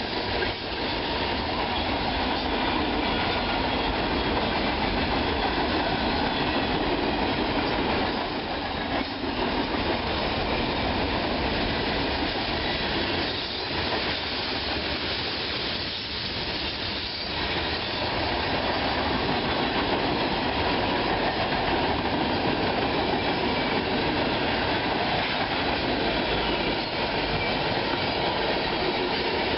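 A train rolling past at close range: steady, continuous noise of steel wheels on the rails, with faint thin high tones of wheel squeal running above it.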